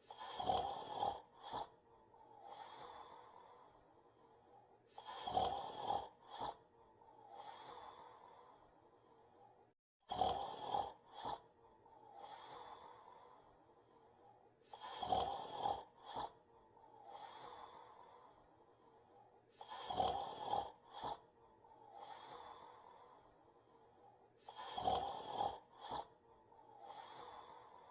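Soft snoring, one snore about every five seconds: a louder breath broken into several short rattling pulses, then a fainter, smoother breath about two seconds later.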